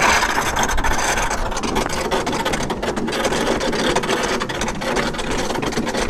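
Metal cookware sparking and arcing inside a running microwave: a loud, dense crackling with many sharp snaps.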